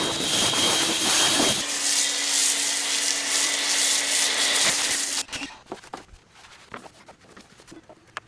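Pressure washer spraying: a loud, steady hiss of water with a steady motor hum under it, which shifts in pitch about a second and a half in and cuts off suddenly about five seconds in, leaving a few faint clicks.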